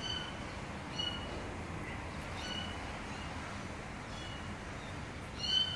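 A frightened kitten giving short, high-pitched mews about once a second, the loudest near the end.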